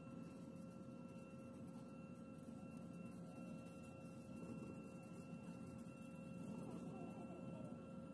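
Airbus A320 cabin noise while taxiing: a steady low rumble with several constant whining tones held throughout.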